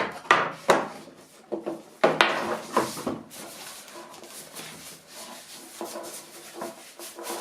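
Cardboard box and packaging being handled as a keyboard is taken out: rubbing and sliding, with a few sharp knocks in the first three seconds, then quieter rustling.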